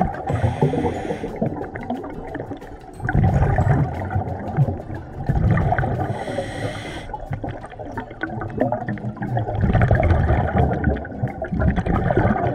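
Scuba diver breathing through a regulator underwater: a hissing inhalation about every six seconds, near the start, about six seconds in and near the end, with bursts of low bubbling rumble from the exhaled air between them.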